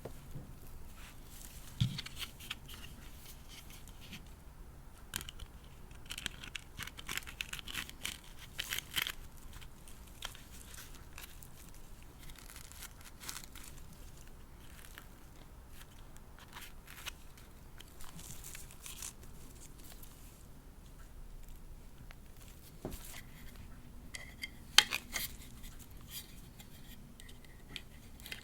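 Hands handling a fashion doll and its packaging: intermittent rustling and crinkling with scattered small clicks and taps. The sharpest click comes about 25 seconds in.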